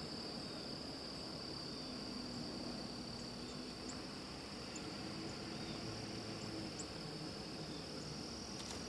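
Steady, unbroken high-pitched singing of insects in summer grass, like a cricket chorus, with a few faint short chirps over it.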